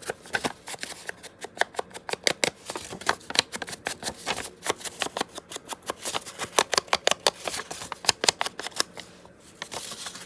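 Paper being handled and worked on a tabletop: a quick, irregular run of crisp clicks, taps and rustles.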